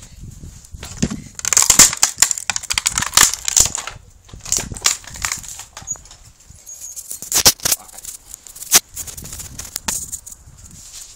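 Bicycle rattling and bumping over concrete grass-paver blocks, a jumble of clatters and knocks, with a few sharp louder knocks in the second half.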